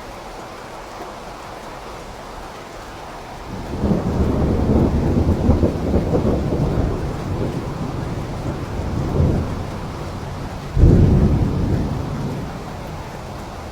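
Steady rain with thunder: a long low rolling rumble sets in about four seconds in, and a sharper, louder clap breaks about eleven seconds in before it dies away to the rain again.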